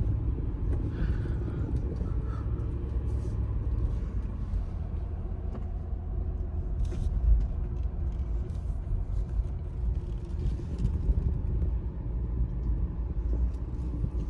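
2004 Lexus GX470 driving on the road, heard from inside the cabin: a steady low rumble of its 4.7-litre V8 and tyres, with a single bump about seven seconds in.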